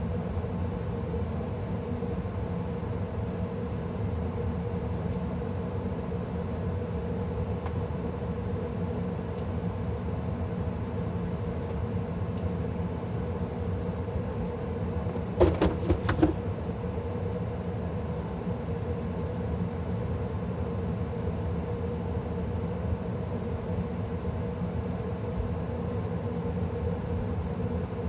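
2013 Carrier gas furnace running with a steady hum from its blower and burners. A short cluster of sharp knocks or clicks comes about fifteen seconds in.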